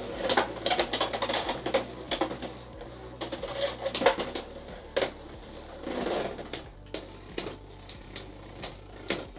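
Two Beyblade X spinning tops clashing in a plastic stadium, one on a Gear Needle bit, with rapid clicking and clacking hits. The hits are dense at first and thin out to scattered knocks as the tops slow.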